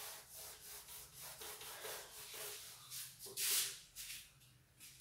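Whiteboard duster wiped back and forth across a whiteboard, erasing marker drawing: a quick series of rubbing strokes, about three a second, with one louder stroke a little past halfway before it tails off.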